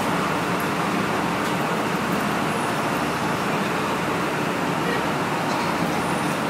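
Steady running noise of a diesel passenger train standing at the platform with its engine idling, a low hum under an even hiss.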